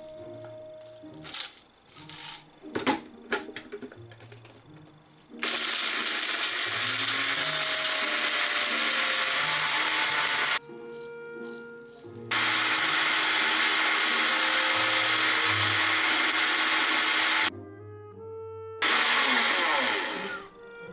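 AEG personal blender grinding whole spices (juniper berries, peppercorns, allspice, bay leaves, seeds) into powder, run in three bursts: about five seconds, a short pause, five seconds more, then a brief final burst near the end. Light background music plays between the bursts.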